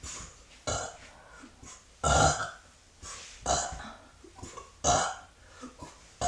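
A woman burping repeatedly: four main burps about a second and a half apart, the loudest about two seconds in, with a few small ones between.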